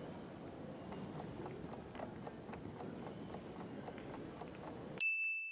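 Train-ride ambience: a steady rumble with light clicks at irregular intervals. Near the end it cuts off abruptly and a single bright ding rings out and fades.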